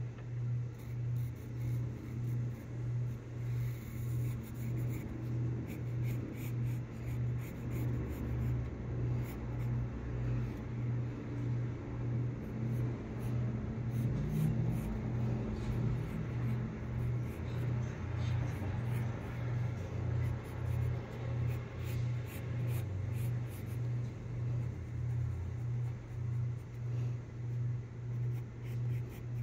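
Graphite pencil scratching and shading on sketchbook paper in short strokes, over a loud low hum that throbs evenly about one and a half times a second.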